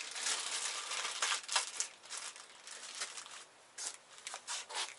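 Plastic parts packaging crinkling and rustling in irregular bursts as hands open and handle it.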